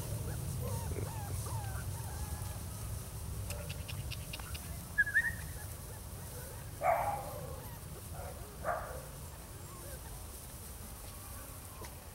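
Belgian Malinois puppies about a month old giving a few short, faint yips and whimpers, scattered through the stretch, over a steady low outdoor rumble.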